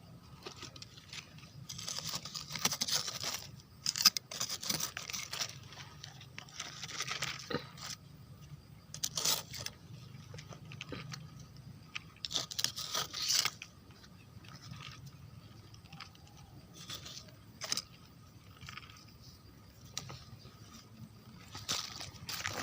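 Irregular crunching and scraping in dry forest leaf litter and undergrowth, in uneven bunches with short gaps, from mushroom picking in the forest floor.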